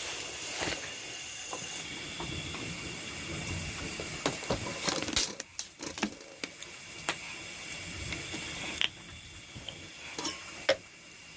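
Rice-field insects chirring steadily in high tones, with scattered clicks and knocks of things being handled close by; one sharp knock near the end.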